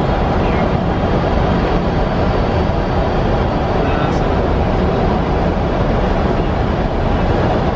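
Steady rush of airflow and engine noise inside the flight deck of an Airbus A300-600 on final approach, with a faint click about four seconds in.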